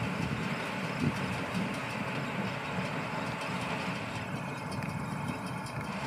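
Tractor engine and New Holland small square baler running steadily while baling hay.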